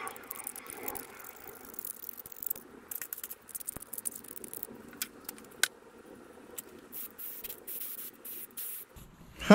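Scraping at the corrosion crystals on a mower carburetor's float bowl: an irregular scratching with scattered sharp clicks and ticks.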